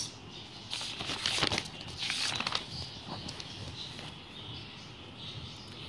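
Paper pages of a textbook rustling as they are turned, a papery swish lasting about two seconds from about a second in.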